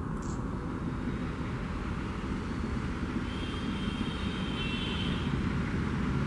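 ALCO WDG3A diesel locomotive's 16-cylinder engine chugging hard under load as it hauls a heavy freight train: a deep, steady rumble that grows slowly louder as the locomotive approaches.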